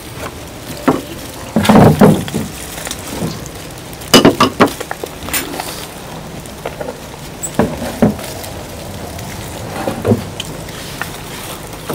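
Someone eating coconut-braised chicken thighs: chewing and wet, sticky food noises with irregular clicks and knocks of dishes, loudest about two and four seconds in.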